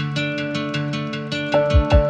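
Background music: a quick, even run of plucked guitar notes, with two deep drum hits coming in near the end.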